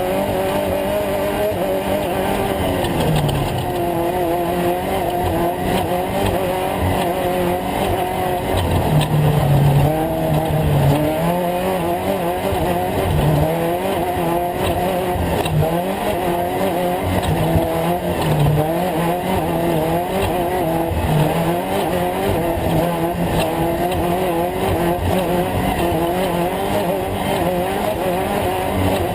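Off-road race truck engine running hard and continuously, its pitch rising and falling again and again as the throttle is worked.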